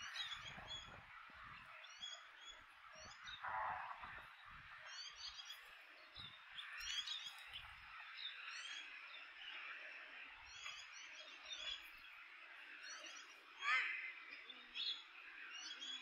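A flock of European goldfinches twittering: short, high chirps in quick runs, scattered throughout over a steady background hiss.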